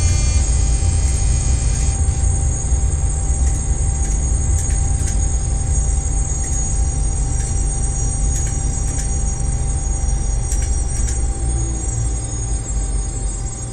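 Electric train heard from inside the driver's cab while running: a steady low rumble of the running gear with a thin, steady high whine and scattered sharp clicks, easing off a little near the end.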